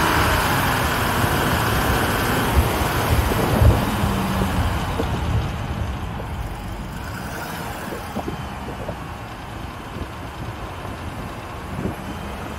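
Open off-road vehicle driving over rough dirt and gravel: engine and drivetrain running with knocks and jolts from the body and suspension over the bumps, heard from on board. It gets quieter about halfway through.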